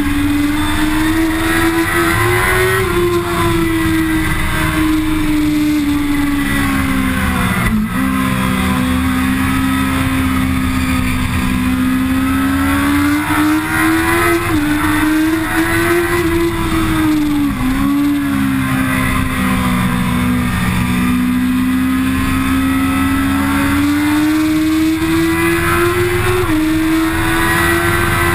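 Onboard sound of a Kawasaki ZX-10R's inline-four engine under hard riding on track, its pitch climbing steadily and dropping at a few points before climbing again, over steady wind noise. A short knock comes about eight seconds in.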